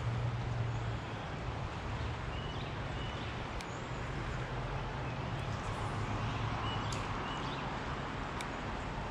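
Steady rush of a shallow river running over rocks, with a low hum underneath that comes and goes in strength. A few short high chirps and a few faint ticks sit on top.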